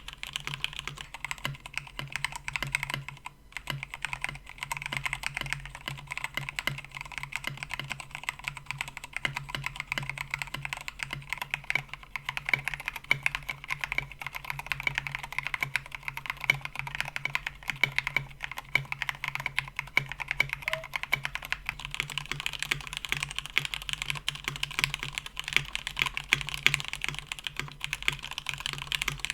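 Continuous, fast typing on a KBD67 Lite mechanical keyboard with Cherry MX Black Hyperglide linear switches in a polycarbonate plate: a dense run of key clacks, with a brief pause about three seconds in.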